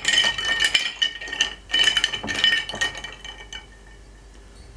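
Ice cubes clinking and rattling against a drinking glass as the drink is stirred with a finger, ringing glassy clinks that stop about three and a half seconds in.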